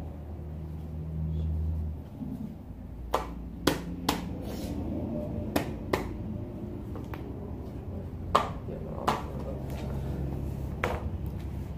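Scattered sharp clicks and knocks from hand work on bicycle parts, about eight of them spread irregularly over several seconds. A low steady rumble runs under the first two seconds.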